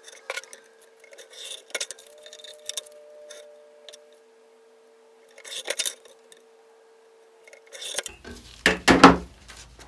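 Light metallic clicks and taps of a steel ruler being handled on a paper cutter's board, with a louder clatter near the end.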